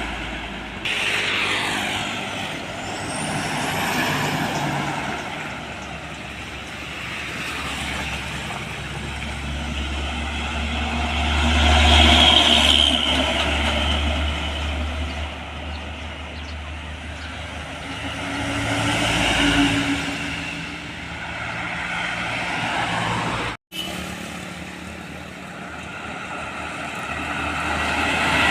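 Heavy diesel trucks passing on a road one after another, each engine and its tyre noise swelling and fading as it goes by, about four passes in all. A split-second dropout cuts the sound about three quarters of the way through.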